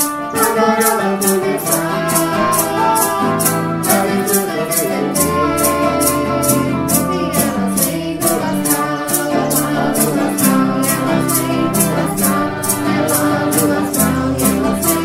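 Santo Daime hymn: a voice singing in Portuguese over strummed guitar and bass, with a maracá shaken in a steady beat of about three strokes a second.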